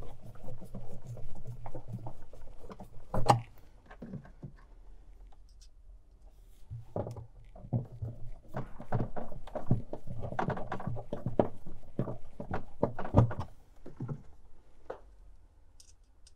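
Hand screwdriver and hands working on a refrigerator's inner back panel as its screws go in: clicks, scraping and knocks, with a sharp knock about three seconds in and a busier run of knocking in the second half.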